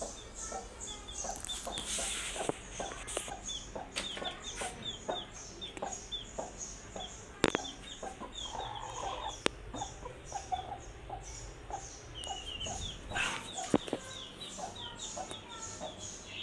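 Broody hen clucking in short, low calls, over a steady run of short high chirps and a rhythmic high pulsing, with a few sharp clicks.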